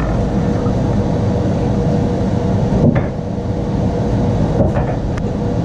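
Steady low rumble with a faint steady hum through it, and a few light knocks about three and five seconds in.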